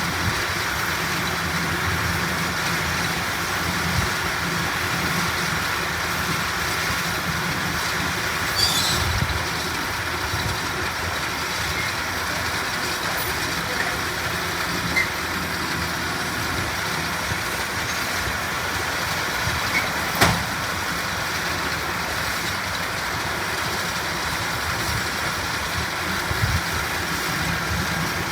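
Farm tractor engine running steadily under light load, with a single sharp knock about twenty seconds in.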